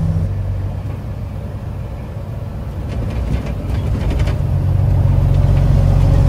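Truck engine running, heard from inside the cab while driving; its sound dips about a second in and builds back up over the next few seconds, with a few faint rattles in between.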